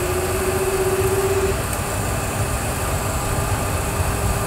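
Boeing 737 simulator's engine sound spooling up as initial takeoff thrust is set: a steady low rumble with a faint whine that climbs slightly over the first second and a half, the engines settling at a stable setting before full takeoff thrust.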